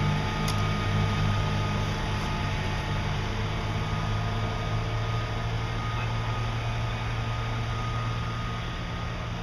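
Fire truck engine idling nearby: a steady low drone over a constant hiss.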